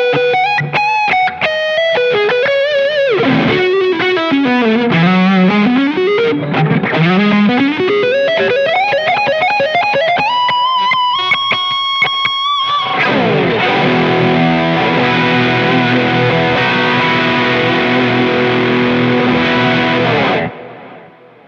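UMEDA UTE-Aldernico2 electric guitar with twin humbucker pickups, played with distortion. It plays single-note lead phrases with vibrato, quick runs down and back up, and a held note shaken with vibrato. About two-thirds of the way in a full chord rings for about seven seconds, then is muted suddenly near the end.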